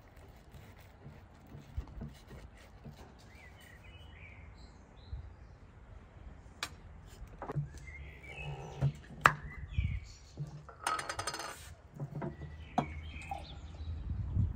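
Scattered clinks and knocks of dishes and cutlery, the sharpest about nine seconds in, with birds chirping now and then. A short rattling buzz comes about eleven seconds in.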